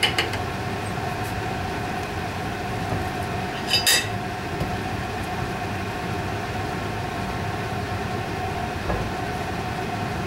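Steady background hum, with a short clink of a utensil against the glass baking dish about four seconds in as a slice of tiramisu is cut and lifted out.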